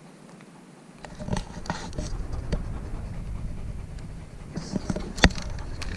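A dog panting close to the microphone, amid rustling and scratching, with one sharp click about five seconds in.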